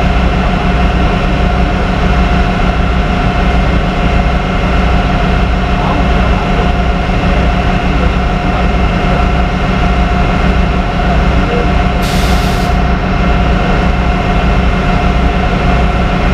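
Heavy tow truck's engine running steadily with an even low throb, and a brief hiss about twelve seconds in.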